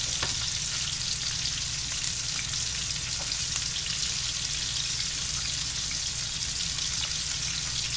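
Fried fish sizzling in a little oil in a frying pan on a gas burner: a steady crackling hiss, with a steady low hum underneath.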